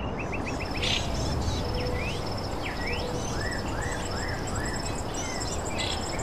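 Steady background noise with small birds chirping, including a run of four short arched notes about two seconds in, and an insect trilling in a fast, high, pulsing buzz.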